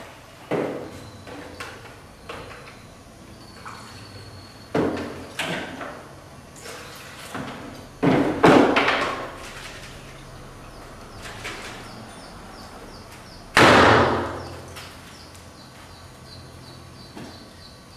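A series of separate knocks and thuds, each dying away over a second or so; the loudest comes about thirteen and a half seconds in.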